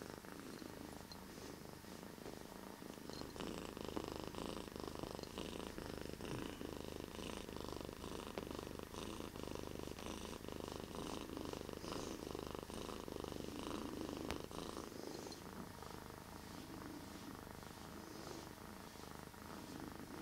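Domestic cat purring deeply and continuously at close range, a little softer in the last few seconds.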